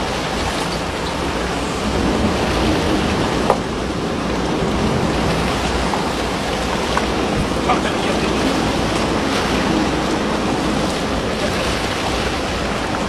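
Steady rush of sea water and wind at sea, with a few brief sharp splashes or knocks about three and a half and seven to eight seconds in.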